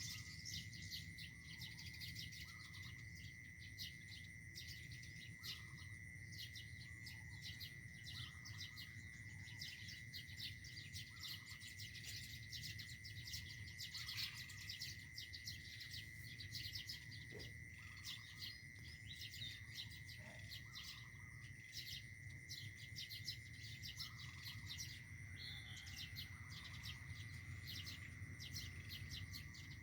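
A bird chirping in quick, continual short notes, over a steady high-pitched tone and a low background hum.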